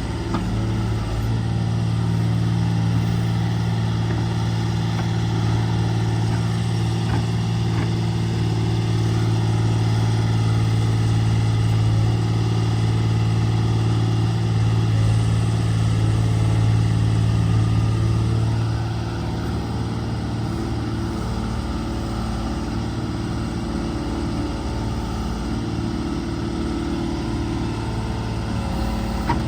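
Case 125B excavator's diesel engine running steadily while it digs. It works harder for about the first two-thirds, then drops back to a quieter, lower-load note.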